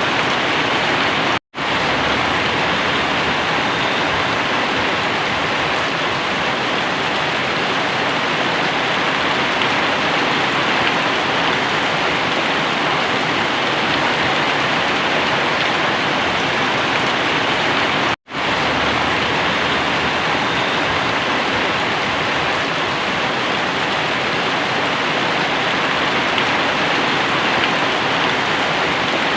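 Very heavy rain pouring down steadily as a dense, even hiss. Twice the sound drops out for a split second.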